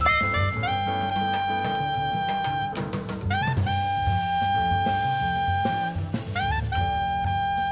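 Jazz band music: a saxophone holds long notes, scooping up in pitch into each new one, over walking bass and a drum kit.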